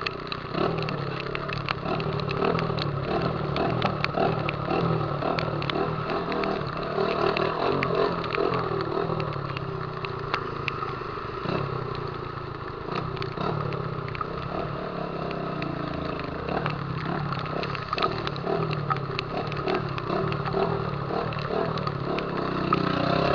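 Honda CG Titan 150's single-cylinder four-stroke engine running through a loud Viúva Negra aftermarket exhaust while riding, its note repeatedly rising and falling with the throttle, with frequent sharp crackles over it.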